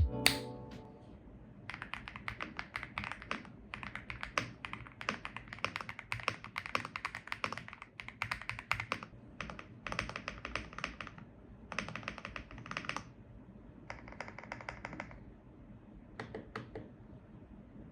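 Typing on a gasket-mounted Weikav WK75 mechanical keyboard with Purple Abyss switches: a long run of fast keystrokes, then several bursts of about a second each with short pauses between.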